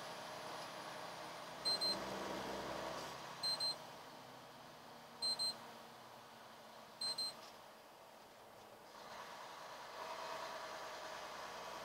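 An in-cab electronic warning beeper sounds four double beeps, evenly spaced about two seconds apart. Underneath runs the steady road and engine noise of the moving semi truck, which eases off briefly after the beeps.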